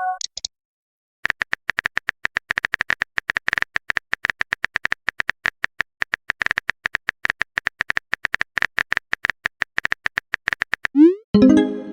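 Rapid, irregular keyboard-typing click sound effect, several clicks a second. Near the end a short rising swoosh is followed by a ringing chime, like a chat message being sent or received.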